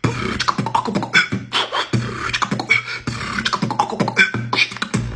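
Human beatbox beat: a fast, rhythmic vocal drum pattern of bass-kick thumps and cough snares, the snare sound made by coughing while whispering.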